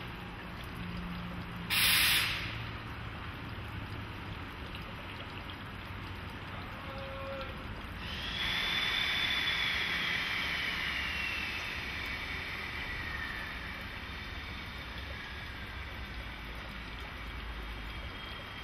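Electric locomotives standing energised in a depot: a steady hum of on-board equipment, with a short, loud burst of air hiss about two seconds in. From about eight seconds a whir swells up, carrying a whine that slowly falls in pitch.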